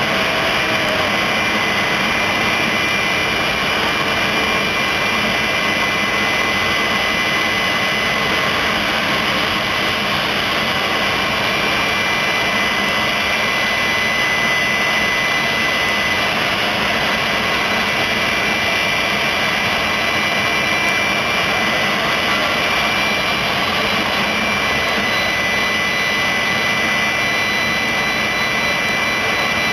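Jet truck's turbine engine running steadily: a loud, even rushing noise with a thin, steady high-pitched whine over it.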